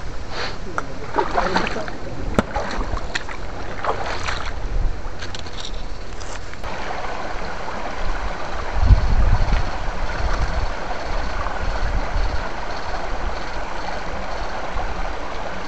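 Shallow creek water sloshing and running among rocks. There are scattered splashes and knocks in the first few seconds, then steady running water with a low rumble about nine seconds in.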